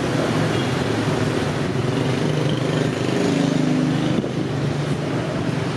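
Street traffic of motor scooters and a car passing: a steady hum of small engines, strongest from about two seconds in and dropping off sharply just after four seconds.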